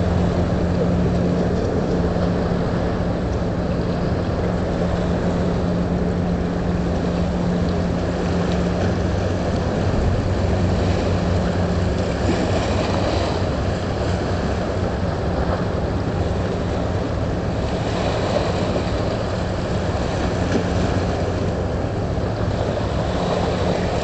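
Steady low drone of a boat engine, mixed with wind and water noise.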